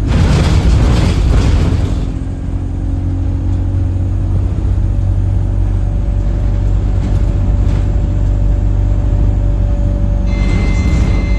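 Alexander Dennis Enviro 200 bus running, with a steady low drone and a loud hiss for the first two seconds. About ten seconds in, a high steady whistle starts, which the owner suspects comes from the gearbox.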